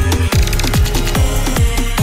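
Electronic backing music with a fast, steady kick-drum beat.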